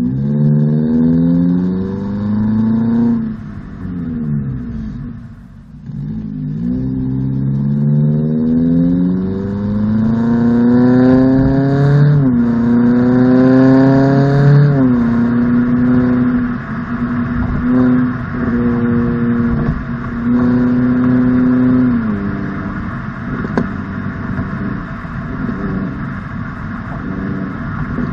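Toyota Corolla's four-cylinder engine heard through a Borla S-Type aftermarket exhaust, recorded at the tailpipe. The revs climb and drop back several times as the car accelerates and upshifts, then settle into a steady drone while cruising, with a step down in pitch about two-thirds of the way through.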